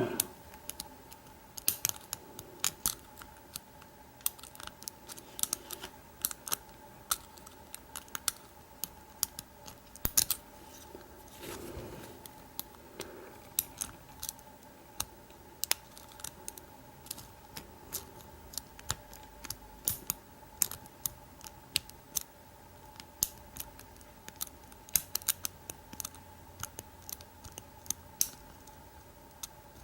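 Faint, irregular metallic clicks and ticks of a hook pick and pry-bar tension wrench working the pin stack inside a Sesamee 936 padlock cylinder during single pin picking, a few clicks a second.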